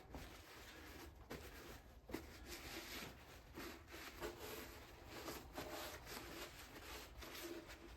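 Very faint rubbing and small handling noises, a shop rag wiping oil off engine bottom-end parts.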